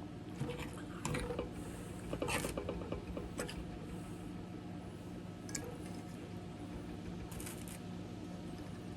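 Faint, scattered clicks and short handling noises, with a small cluster of rapid clicks about two seconds in, over a steady low hum.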